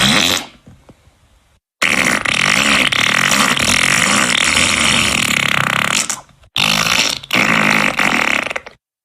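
A string of fart sound effects with dead silence between them: a short blast at the start, a long drawn-out one of about four seconds, then two shorter ones near the end.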